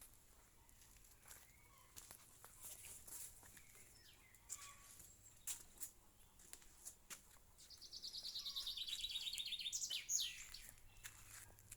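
A songbird sings a fast trill of rapid, evenly spaced high notes that fall slightly in pitch, lasting about two seconds, followed by a sharp single call. Scattered faint chirps and light clicks come before it.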